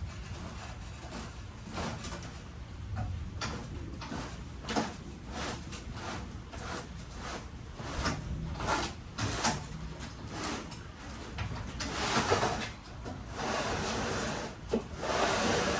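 Heavy portable generator being slid and shifted on cardboard out of a vehicle: a run of short scrapes and knocks, turning into longer, louder scraping near the end.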